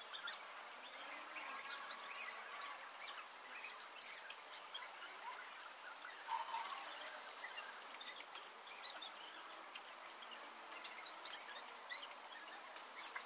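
Fast-forwarded sound of a pen-and-paper sketching session, sped up into quiet, scattered high-pitched squeaky chirps and ticks over a light hiss.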